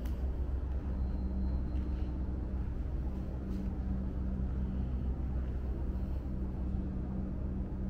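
Steady low hum with a faint droning tone, the room tone of a large indoor hall.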